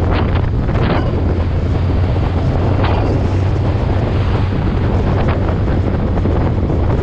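Wind rushing over the microphone of a moving vehicle, steady and loud, over a constant low drone.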